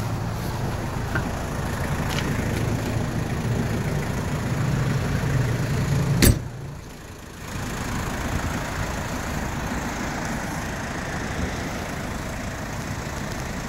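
Mazda Brawny's diesel engine idling steadily, with one sharp knock about six seconds in, after which the sound briefly drops and comes back as a steadier, duller hum.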